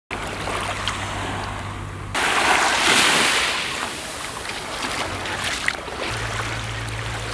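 Sea waves and wind noise with a low steady hum underneath; a louder rush of surf about two seconds in lasts about a second and a half.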